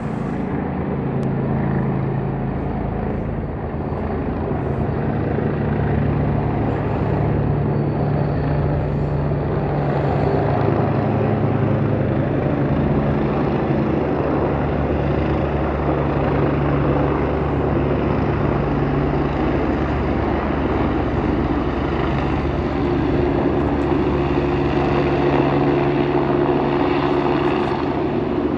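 Helicopter approaching to land, heard from a distance: a steady drone of rotor chop and engine. A higher engine tone joins in near the end.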